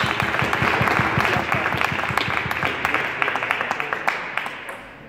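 Spectators applauding, many quick claps, fading away near the end.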